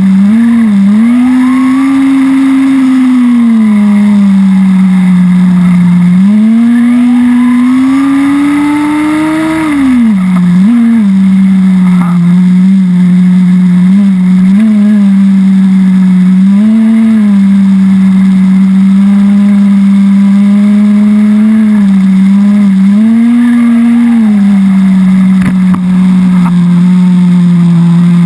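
Small two-stroke nitro glow engine (HSP VX-18) of a 1/10 RC buggy idling at a high, steady buzz. It is blipped on the throttle several times and revved up in a longer rising whine about six to ten seconds in, then falls back to idle. The engine is near the end of its break-in on its first litre of 10% nitro fuel.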